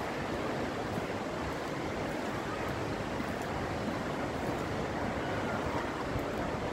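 Steady rushing outdoor noise, mostly wind on the microphone over the general hum of the city, with no distinct events.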